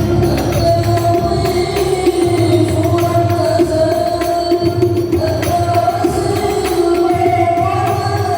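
Sholawat devotional singing with hand-drum percussion, played loud through a PA sound system being checked. The voices hold long, steady notes.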